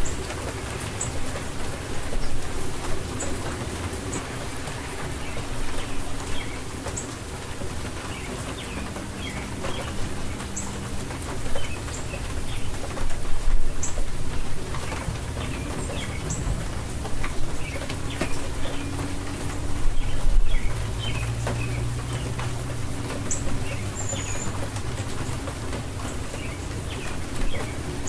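Steady rain falling, with birds calling over it: low, drawn-out cooing calls and short high chirps. The rain swells louder a few times near the middle.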